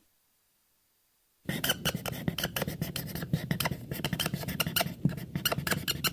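A sound effect of rapid, irregular clicking and scratching over a low hum, starting after about a second and a half of silence.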